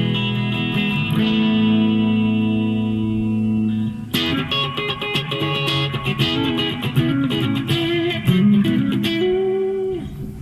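RJ Broadcaster Deluxe electric guitar played on a clean tone. Held chords ring for about four seconds, then a quick run of picked single notes with a few bends, ending on a held note that fades out.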